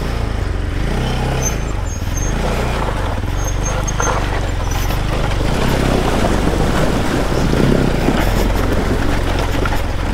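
Motorcycle engine running steadily while being ridden, under a constant rushing noise of wind and tyres.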